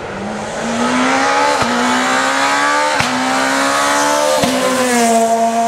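Rally car engine accelerating hard toward the listener, the revs climbing and then dropping sharply at each of three upshifts about a second and a half apart, with a short crack at each shift. It then holds nearly steady revs near the end.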